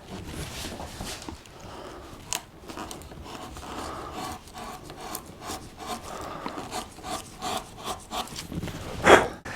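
Hand-pushed woodcarving gouge paring wood: a run of short scraping cuts as the wall of a shallow circular recess is set in, with one louder stroke near the end.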